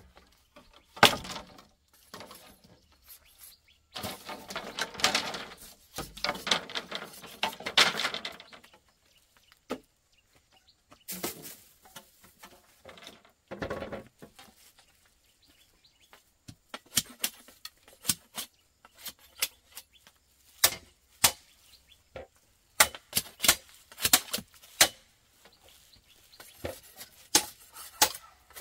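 Irregular sharp clicks, taps and knocks of hard objects being handled, with a longer stretch of scraping and rustling a few seconds in and quicker runs of knocks near the end.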